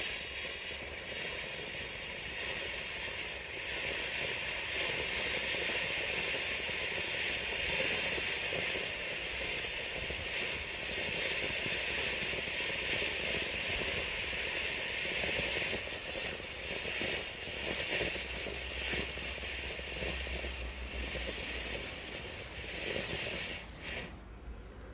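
Pinto Feuerwerk Casablanca fountain battery burning, one tube spraying sparks with a steady loud hiss that cuts off sharply near the end.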